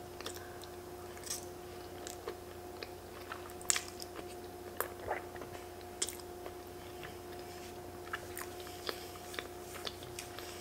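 A person chewing a mouthful of creamy fettuccine alfredo close to the microphone, with irregular small wet clicks and smacks of the mouth. A faint steady hum runs underneath.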